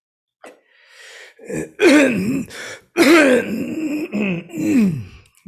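A man's loud, wordless throaty vocal noises in several bursts, the pitch sliding up and down, like a comic grunting or growling put-on voice.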